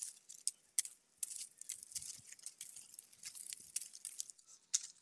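Dry leaves and plastic sack-string cord rustling and crackling as hands handle a bundle of quail snare loops: an irregular run of short, sharp crackles.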